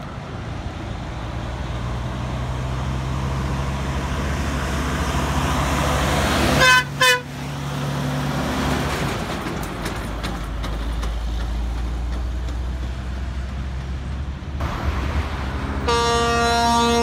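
Semi truck's diesel engine running as the rig pulls through and passes close by, with two short horn toots about seven seconds in. Near the end another horn starts one long steady blast.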